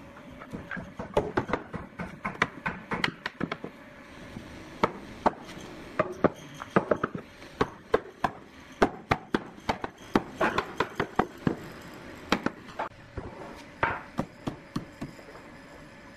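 Hammer blows on hardwood in quick, irregular runs of several knocks a second, with short pauses between runs.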